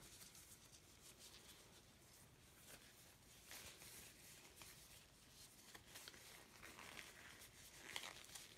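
Near silence, with a few faint rustles of thin disposable gloves being pulled onto the hands.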